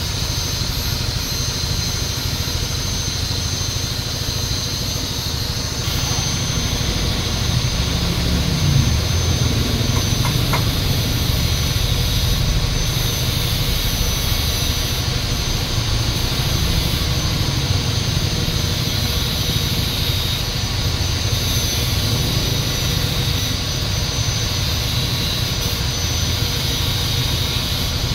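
A steady machine drone, heavy in the low end, with a thin high whine.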